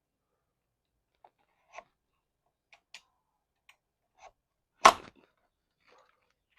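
Small tools and door hardware being handled: a few faint, scattered clicks and taps, then one sharp knock about five seconds in.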